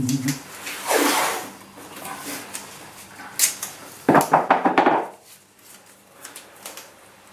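Masking tape pulled off the roll twice: a short pull about a second in, then a longer crackling pull about four seconds in, with light taps and rustling as the strips are handled and pressed down.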